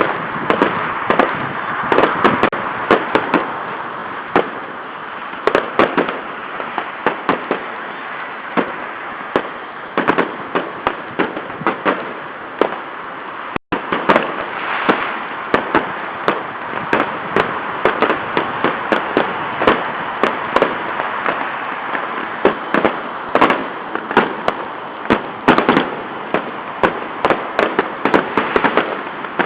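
Fireworks going off in a dense, irregular string of sharp bangs and crackles over a steady background noise, heard through a webcam microphone that cuts the highs. The audio drops out briefly a little before halfway.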